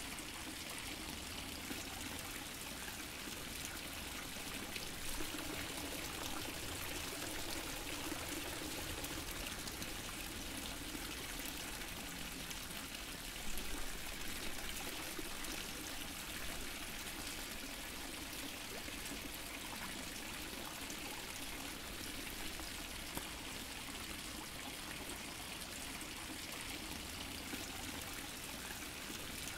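Water fountain splashing and trickling steadily, with one brief louder moment about halfway through.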